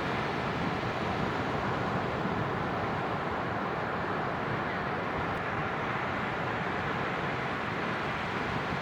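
Ocean surf: a steady rushing of waves on the shore.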